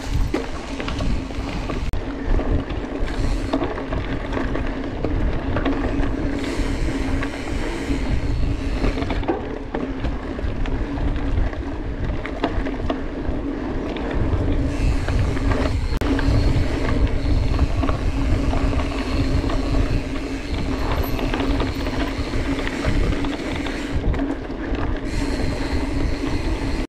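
Mountain bike being ridden on a trail: continuous tyre and drivetrain rumble with wind buffeting the action-camera microphone, and a steady hum running underneath.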